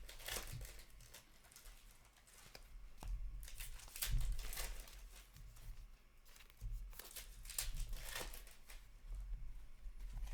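Trading card packs being handled and torn open: irregular crinkling and tearing of pack wrappers, with brief swishes of cards sliding against each other.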